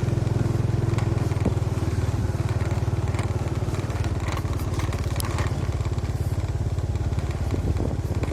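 Motorcycle engine running steadily, a fast low pulsing, with occasional small clicks and rattles over it.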